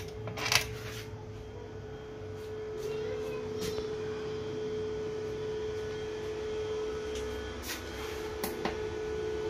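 A switch clicks once, sharply, about half a second in, then a steady single-tone electrical hum carries on, with a few faint clicks. The hum fits the transformer of a low-frequency pure sine wave 24 V to 220 V inverter running.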